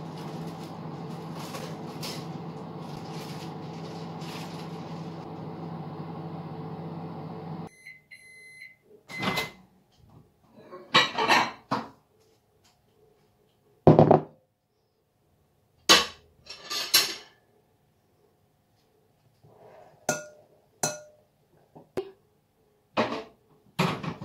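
Microwave oven running with a steady hum that stops about eight seconds in, followed by a few short beeps marking the end of the heating cycle. Then the door clunks open and a glass bowl and spoon are handled in a run of separate knocks and clatters.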